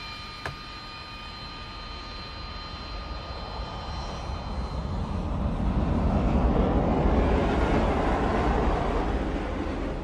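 Jet aircraft flying past. Its engine noise swells over the first several seconds, peaks a little past halfway and fades as it moves away.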